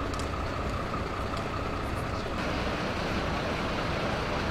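Steady rumble of a fire engine running at idle, with a thin steady whine that stops a little over two seconds in.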